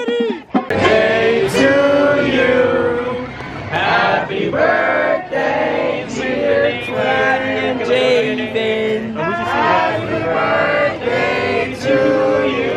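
Singing over music, with the voices holding long notes.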